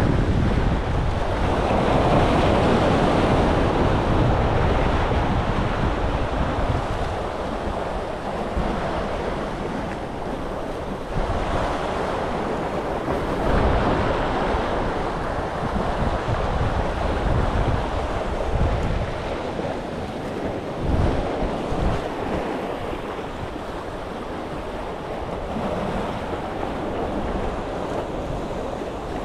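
Sea waves washing and breaking against a concrete-block breakwater, rising and falling in loudness as each wave comes in, with wind buffeting the microphone.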